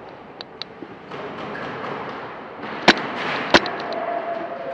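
Two sharp airsoft gun shots about two-thirds of a second apart, with a few fainter clicks, over a steady background hiss.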